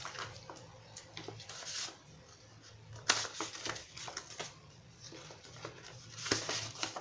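Paper cash envelopes and cards rustling and shuffling as they are handled and put back into a ring binder's plastic pocket, in irregular short rustles, with louder ones about three seconds in and near the end.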